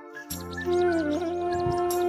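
Background music: a sustained melody over a steady drone, coming back in after a brief dip at the start.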